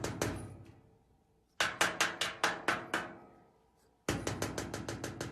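Three runs of rapid, sharp knocking, each about a second and a half long at about six strikes a second, with short pauses between them.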